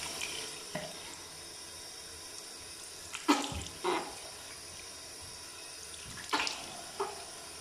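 Tap running steadily into a bathroom sink while a face is washed, with a few short, louder splashes from about three seconds in.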